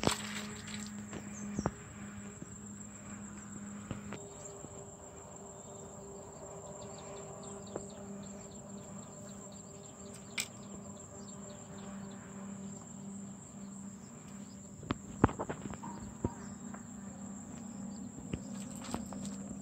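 Insects chirring in a steady, unbroken high-pitched drone, with a few sharp clicks and knocks, most of them about fifteen seconds in.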